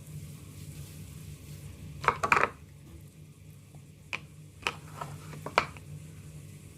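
Hard objects clattering briefly about two seconds in, then five separate sharp clinks over the next couple of seconds, over a steady low hum.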